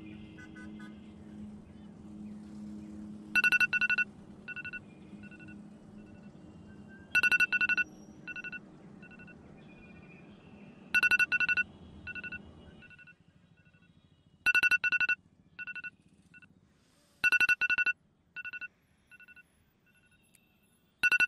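Mobile phone alarm ringing: an electronic ring pattern of a loud double burst followed by a few shorter beeps, starting about three seconds in and repeating roughly every three and a half seconds. Soft background music runs underneath and stops about two-thirds of the way through.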